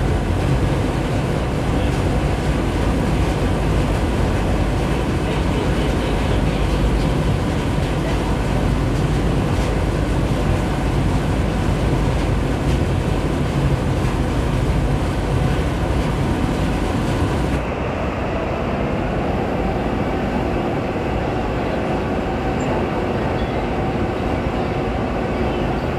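Riverboat's diesel engine running under way with a steady low drone, mixed with wind and water noise. About two-thirds of the way through the sound changes abruptly, becoming duller and slightly quieter.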